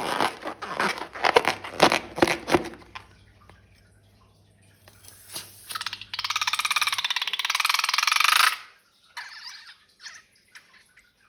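Slime being squeezed out of a balloon and squished: wet crackling squelches for the first few seconds, then a long rasping squelch lasting about two and a half seconds, and a shorter one after it.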